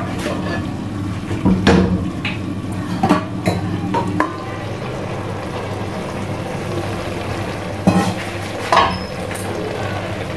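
Aluminium cooking-pot lid and ladle clanking as the lid is handled and lifted off a pot of simmering spinach: a handful of sharp metal knocks, loudest near the start and again late on, over a steady low hum.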